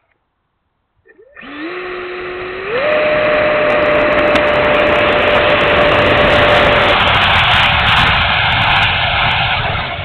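E-flite F-16 model jet's 70mm electric ducted fan spooling up about a second in, its whine rising in two steps and then holding steady at full throttle over loud rushing air. It is the takeoff run, heard from a camera mounted on the jet.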